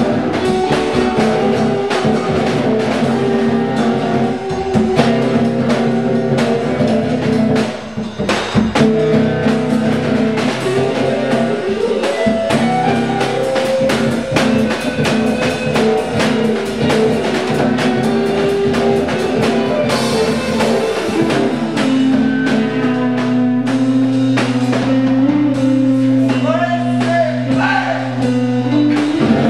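A rock band jamming a slow blues, drum kit, electric bass and electric guitars played together, loud in a bare concrete garage. Near the end a low bass note is held under bending, sliding notes.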